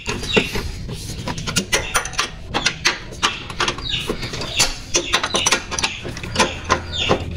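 Ratchet wrench clicking in quick, irregular runs as it turns bolts on a car's transmission support bracket, with chickens clucking in the background.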